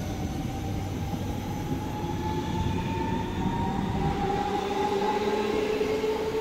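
Train running on the track with a rumble and a whine that rises slowly in pitch.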